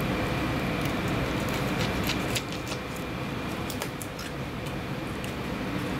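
Steady background hum with a constant faint high whine, over which come scattered light clicks and scrapes of a knife working through a fish on a plastic cutting board. The hum drops slightly about two and a half seconds in.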